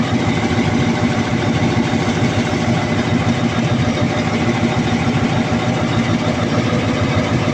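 Freshly overhauled Cummins QST30 V12 diesel engine running steadily at idle on its test run.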